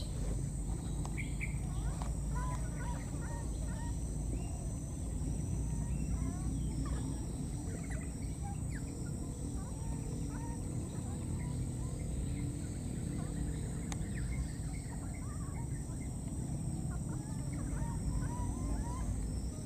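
Many short, squeaky animal calls, scattered and irregular, over a steady high insect drone and a low outdoor rumble.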